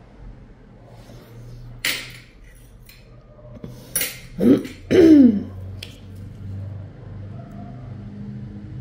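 Metal podiatry instruments clinking sharply about three times. In the middle come two short voiced sounds from a person, each falling in pitch, which are the loudest thing in the clip.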